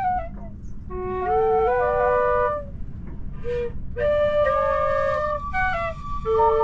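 A wooden flute being practised: short phrases of held notes stepping up and down, with brief pauses between phrases.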